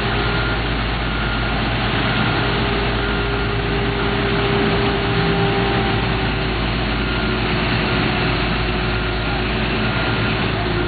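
Engines of heavy asphalt paving machinery running steadily, with faint short beeps now and then.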